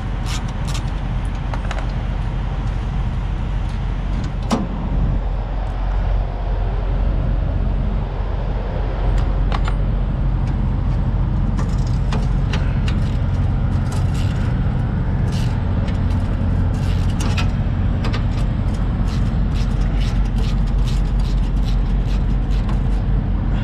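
Steady low rumble of an idling truck engine, with scattered metallic clicks and clinks of hand tools as a mud flap bolt is loosened and spun off.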